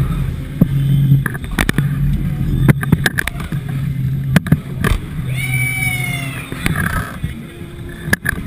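Mondial Shake thrill ride in motion: a steady low hum from the machinery under repeated sharp knocks and rattles as the seat swings. About five seconds in, a rider lets out a scream lasting a second or so.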